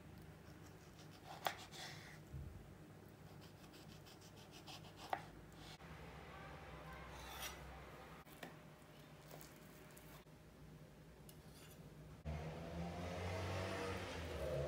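Small kitchen knife cutting kiwi on a bamboo chopping board: soft slicing through the fruit, with a run of quick light taps of the blade on the wood and a few sharper knocks. About twelve seconds in, a louder steady low hum comes in.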